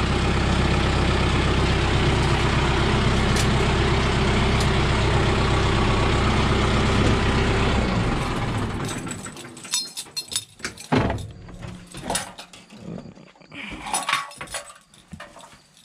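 Kubota tractor's diesel engine running steadily, then shutting off about eight seconds in. After it stops, a scattering of sharp clicks and knocks follows.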